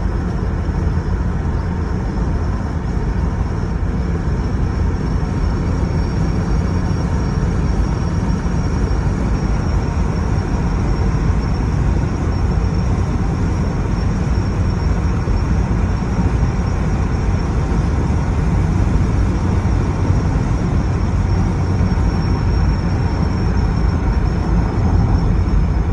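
Steady rush of driving wind buffeting the microphone over the engine noise of a moving vehicle, heaviest in the low end, with a faint thin high whine through most of it.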